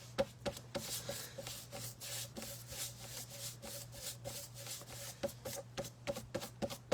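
Paintbrush stroking acrylic paint across a flat canvas artboard, blending the background: quick, repeated scratchy brush strokes, several a second.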